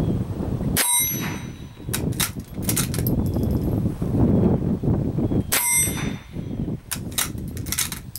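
Remington Model 34 .22 LR bolt-action rifle fired twice, about five seconds apart, each shot a sharp crack with a brief metallic ring. After each shot the bolt is worked, a quick run of metallic clicks as the spent case is ejected and a fresh round fed from the tube magazine.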